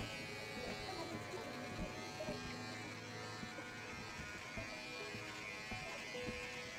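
Electric hair clippers running with a steady buzzing hum as they cut a boy's hair.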